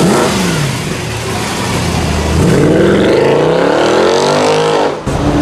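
Mercedes-AMG car engine accelerating hard, its note climbing steadily in pitch for about two and a half seconds, then cut off abruptly about five seconds in.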